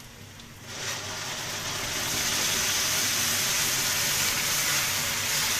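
Wet blended chili paste (chilies, garlic, onion, dried chili) hitting hot oil in a wok and sizzling: a hiss that starts about a second in, builds, then holds steady.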